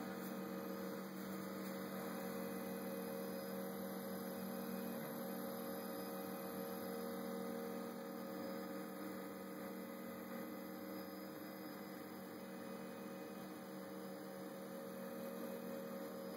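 RepRapPro Mendel 3D printer running a print: its stepper motors and hot-end cooling fan give a steady hum of several tones.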